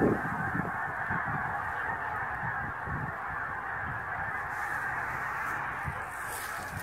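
A large flock of Canada geese in flight, honking all together in a dense, continuous chorus. A brief low rumble comes right at the start.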